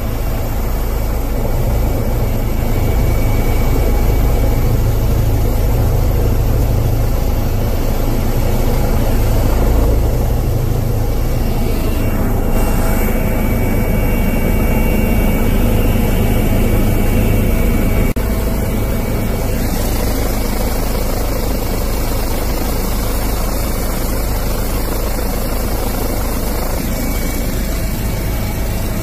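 Helicopter in flight heard from inside the cockpit: a steady, loud rotor and turbine drone. The level dips briefly about eighteen seconds in, then carries on slightly lower.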